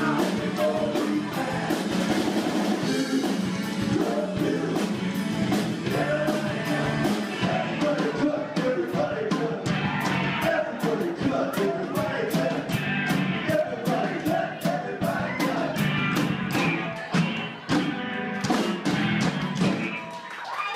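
Live rock band playing: drums, electric guitars and bass with a lead singer. The song stops near the end.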